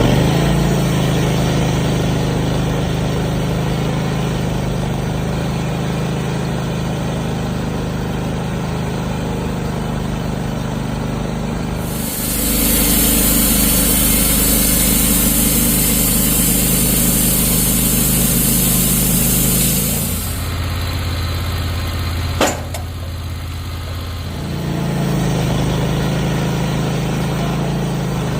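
Wood-Mizer portable bandsaw mill running, its band blade sawing through a red oak log. The engine hums steadily, with a louder, hissier stretch in the middle. The machine then drops back, with one sharp knock about two-thirds through, before the engine picks up again.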